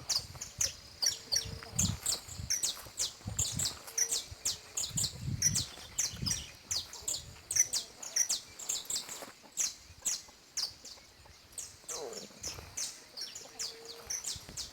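Canário-da-terra (saffron finch) singing: a rapid run of short, high chirps that keeps going throughout. Soft low thumps sound in the first half, and a brief falling lower call comes near the end.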